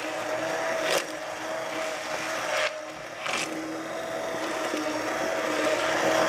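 Handheld stick blender running in a pot of thick, soft roasted butternut squash and red pepper, puréeing it into a sauce. The motor gives a steady whine over the churning, easing off for a moment about three seconds in, with a couple of brief knocks.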